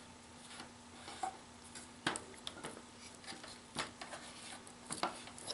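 Scattered light clicks and taps of an LED strip light and its wire being handled and fitted along a pachinko machine's outer rail.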